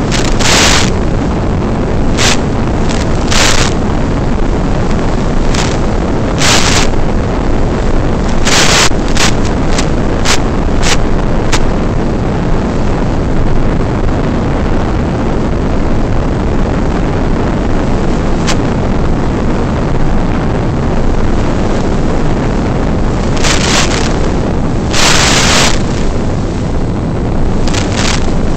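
Steady wind rush on the onboard FPV camera's microphone of a Carbon Cub S2 RC plane in flight, broken by several short bursts of static from the analog video link, one of them about a second long near the end.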